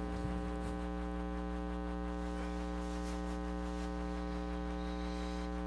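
Steady electrical mains hum with a buzzy stack of overtones, unchanging in level and pitch.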